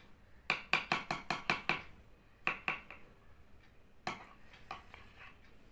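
A metal spoon stirring liquid in a clear jar and clinking against its side. There is a quick run of about eight clinks, then a pair, then a single clink about four seconds in.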